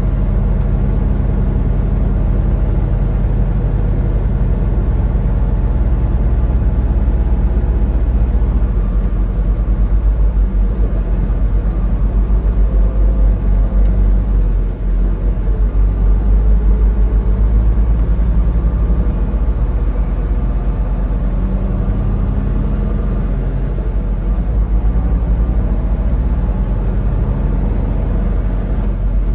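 Semi-truck diesel engine running under way with road noise: a steady, deep drone.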